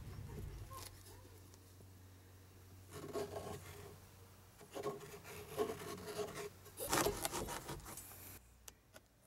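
A hand-held blade cutting and scraping a hole through a truck's fabric-covered headliner, in several short scratchy spells from about three seconds in, with a few light clicks near the end.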